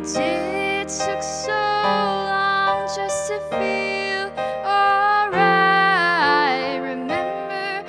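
A girl singing a slow pop ballad while accompanying herself on a digital stage piano. She holds a long wavering note about five to seven seconds in.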